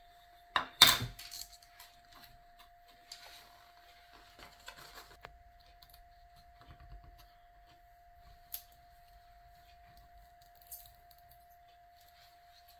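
A sharp double knock of wood on wood about half a second in, the loudest sound, as the wooden sand scoop is set down on the bamboo board. Then comes soft rustling and a few light clicks of sticker paper being lifted and peeled with a wooden stick, over a faint steady tone.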